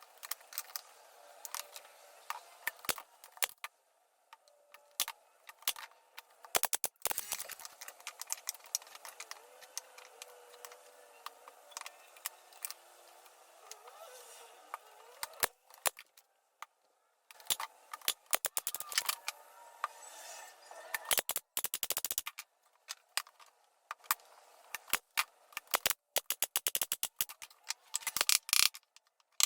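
Irregular clusters of sharp clicks, taps and light rattling, with a few short pauses.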